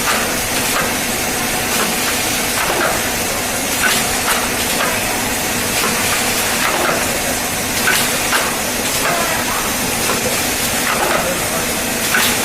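QSJ5040A shrink-film bottle bundling machine running: a steady hiss with a faint hum, broken by short sharp clacks of the mechanism every one to three seconds.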